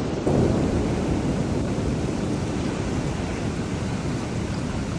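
Thunderstorm recording: a low rumble of thunder swells about a third of a second in and slowly fades, over a steady hiss of heavy rain.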